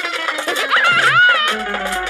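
Instrumental cartoon soundtrack music, with a short wobbling, sliding tone about a second in.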